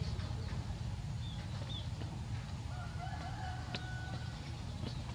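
A rooster crowing faintly about three seconds in, over a steady low rumble, with a few faint high bird chirps.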